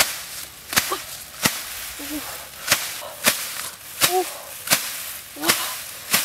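Dry grass stalks being cut and gathered by hand in regular strokes: a sharp snapping swish about every three quarters of a second, some nine times.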